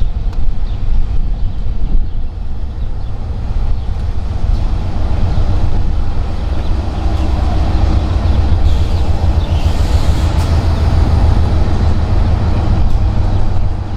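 A train running, heard as a steady heavy low rumble that grows a little stronger about halfway through, with a few faint sharp clicks and short high squeaks near the middle.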